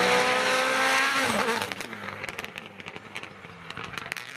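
Hyundai i20 N Rally1 rally car's engine at high revs, holding a steady note, then dropping in pitch a little over a second in. It then gets fainter as the car pulls away, with a run of sharp crackles.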